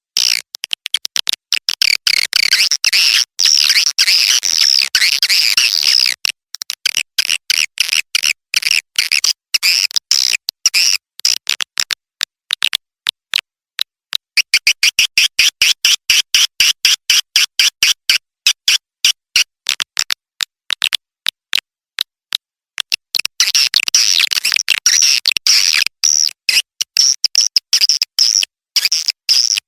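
Recorded swiftlet calls used as a swiftlet-house lure: dense high twittering chirps mixed with rapid dry clicks. The twittering thins to scattered clicks a few seconds in, a quick even run of chirps comes about halfway, and dense twittering returns near the end.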